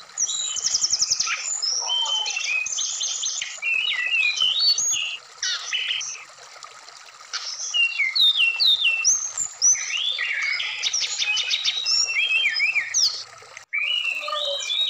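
Brown-chested jungle flycatcher (sikatan rimba dada coklat) singing a varied run of quick whistled phrases and rapid trills over the steady rush of running stream water. The song pauses for a moment around six seconds in, and the sound cuts out for an instant near the end.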